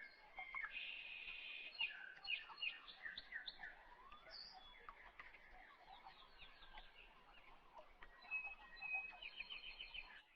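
Faint songbirds chirping and trilling, with a quick run of repeated notes near the end.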